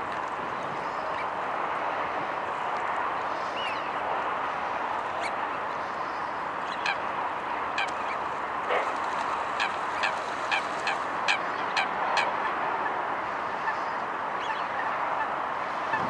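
Waterfowl calling: scattered short calls, then a quick run of about two a second in the middle, over a steady background hiss.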